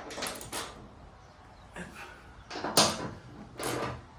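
Hand ratchet wrench tightening the fender mounting bolts, in short bursts of ratcheting strokes, about five over a few seconds, the last two the loudest.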